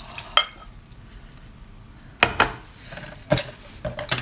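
Sharp clinks and clicks of shellfish shells and dishware against a bowl: one about half a second in, then a few quick clusters in the second half.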